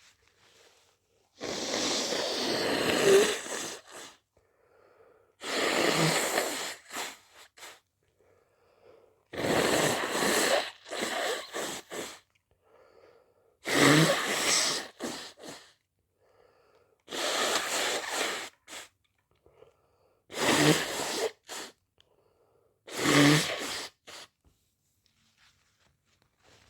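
A person sneezing seven times in a row, strong, wet sneezes about every three to four seconds. Each is a loud, noisy blast lasting one to two seconds, with a faint breath drawn in just before it.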